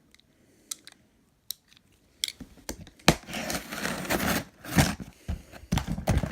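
A few light clicks and knocks, then from about three seconds in a loud run of rustling, crackling and tearing as an Amazon shipping package is opened and its packing tape and wrapping are pulled and cut.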